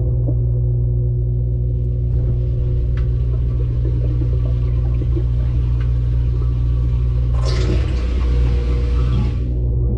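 Washing machine running, heard from inside the drum: a steady low hum and rumble, with a rush of water for about two seconds near the end.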